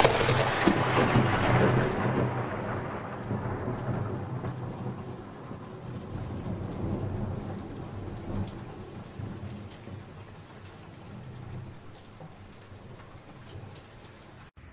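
Thunderstorm: a lightning strike cracks loudly at the start and the thunder rolls away over the next few seconds, leaving steady rain and a low rumble, which cuts off suddenly just before the end.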